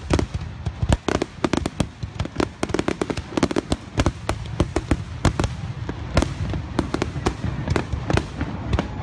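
Aerial fireworks bursting in a rapid barrage: sharp bangs and crackles come irregularly, several a second, over a steady low rumble.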